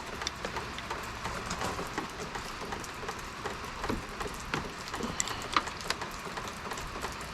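Steady patter of rain, with scattered small clicks and taps from plastic push-pin retainers being pried out of a Jeep Gladiator's grille.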